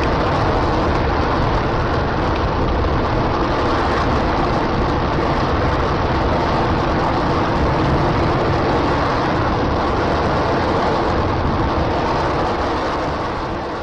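Space Shuttle main engine test firing on a ground test stand: a loud, steady roar that begins to fade near the end.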